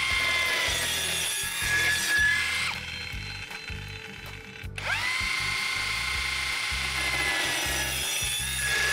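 Cordless drill driving a CutSander adapter, which gears the drill up about 3.5 times to roughly 7200 rpm, spinning a cutting disc through an aluminium rail. A high whine cuts into the metal, winds down with falling pitch about three seconds in, and after a short pause spins up again with a rising whine and cuts once more.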